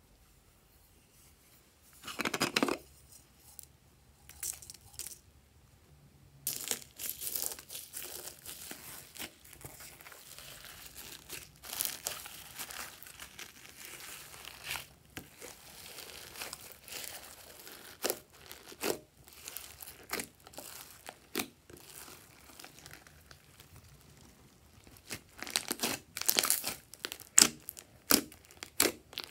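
Hands stretching, folding and kneading thick slime studded with foam beads, giving a run of wet crackling, squelching and sharp pops as air pockets burst, with louder pops near the end. A brief louder noise comes about two seconds in.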